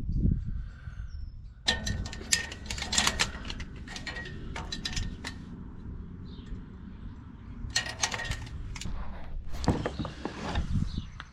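Metal parts and tools being handled: clusters of clicks, knocks and light clattering in three bursts, over a low rumble.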